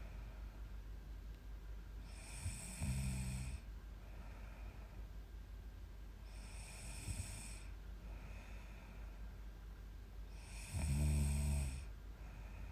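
A young woman snoring in her sleep. There are three snores about four seconds apart, each with a hissy breath and a low rumble, and the last is the loudest. Softer breaths fall between them.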